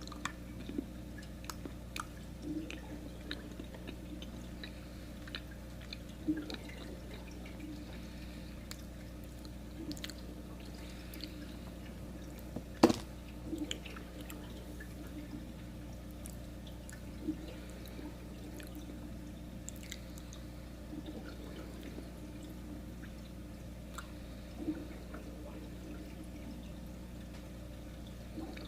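A person chewing a piece of chocolate: soft mouth clicks and smacks scattered over a steady low room hum, with one sharper click about halfway through.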